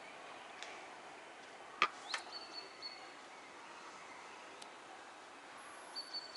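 Quiet evening outdoor ambience with a faint steady hiss. A small bird's thin, high whistled note sounds twice, about two seconds in and again near the end, with a single sharp click just before the first note.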